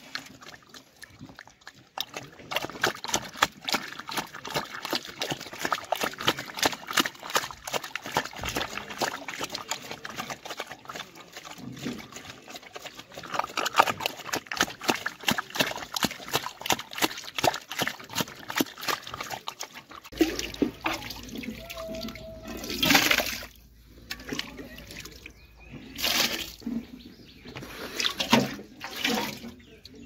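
Black pig eating wet slurry feed from a metal bowl: rapid wet smacking and slurping, many mouthfuls a second. About two-thirds of the way through, this gives way to three loud splashes of liquid.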